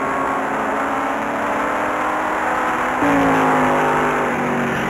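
Formula 5000 race car's V8 engine heard from on board, its revs slowly falling. About three seconds in, the pitch and loudness jump up suddenly, then the revs slowly fall again.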